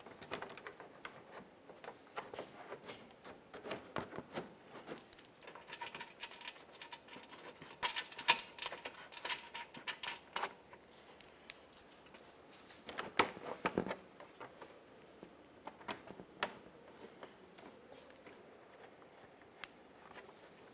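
A plastic engine splash shield being pushed into place and fastened under a Toyota Camry's front end. Scattered small clicks, scrapes and rustles of plastic, with a few sharper knocks about eight and thirteen seconds in.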